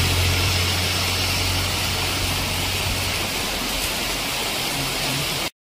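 Heavy rain falling steadily on a wet road, with the low hum of a small goods truck's engine driving away through the downpour and fading out about three seconds in. The sound cuts out abruptly at the very end.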